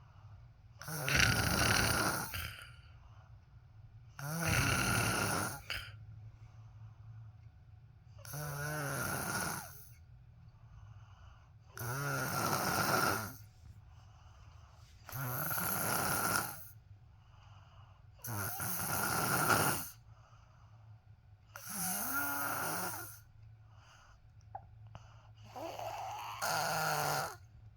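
Snoring: about eight long snores, each lasting a second or so and coming roughly every three and a half seconds, with quiet gaps between them.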